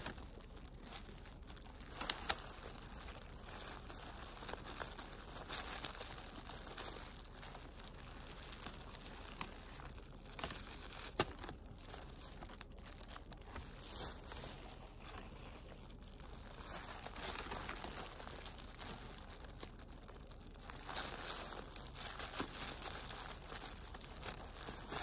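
Thin disposable plastic gloves crinkling and rustling as the hands pick apart banana flower florets and pull out their pistils. The rustling is irregular, with a few small sharp snaps.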